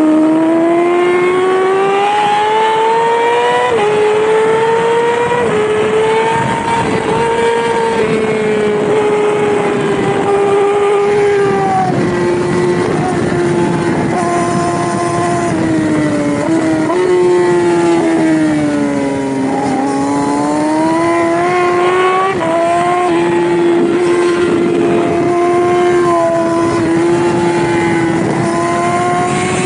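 Yamaha R6 600cc inline-four race bike engine running hard at high revs, its pitch climbing and falling with throttle and gear changes, dipping lowest about two-thirds of the way in before climbing again.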